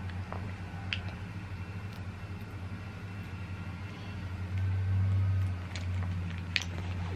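A steady low hum that swells a little past the middle, with a couple of faint short clicks.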